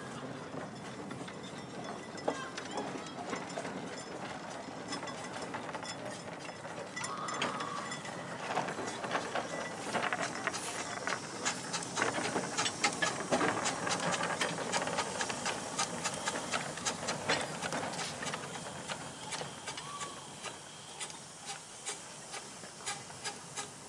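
Small miniature-railway steam locomotive hissing steam, with many sharp metallic clicks and clanks that come thickest and loudest in the middle.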